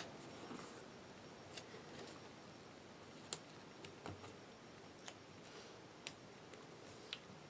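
Faint, scattered clicks and light rustling of paper planner stickers being peeled off a sheet and pressed down onto a planner page by fingertips, with a sharper click right at the start.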